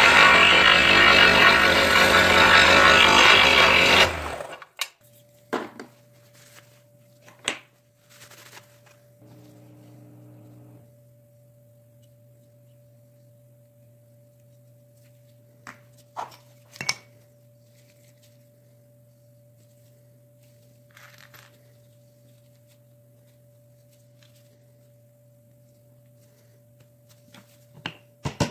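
Scroll saw cutting a wooden knife scale, loud and steady for about four seconds, then stopping. After that a faint steady hum with scattered light clicks of parts being handled, and a few sharp taps of a small hammer on a handle pin near the end.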